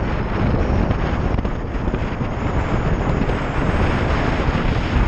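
Wind buffeting a helmet-mounted microphone on a moving motorcycle: a steady rushing, fluttering noise, heaviest in the low end, with the bike's running noise underneath.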